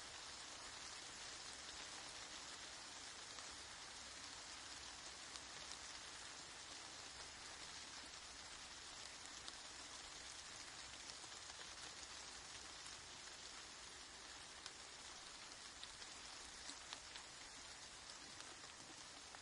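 Steady, soft rain falling, an even hiss with many small, sharp drop ticks scattered through it.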